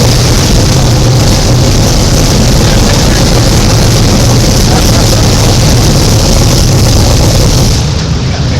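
Loud, steady drone of racing car engines at a dirt track; the higher part of the sound drops away near the end.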